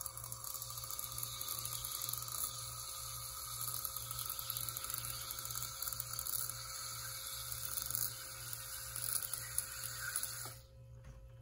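Handheld electric aqueous-ozone sprayer running, its small pump whining steadily while water hisses into a glass beaker. It cuts off abruptly about ten and a half seconds in.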